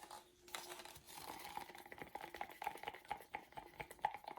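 Faint, rapid clicking and scraping of a stirring stick working around a cup of acrylic paint mixed with silicone oil.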